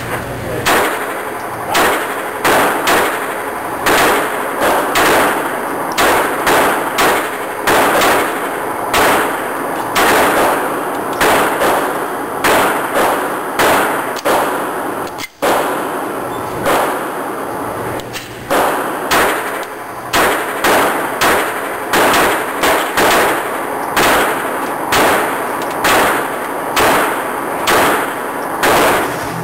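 Sig Sauer Mosquito .22 LR pistol firing, loud sharp shots with a short ring after each, about one to two a second in strings.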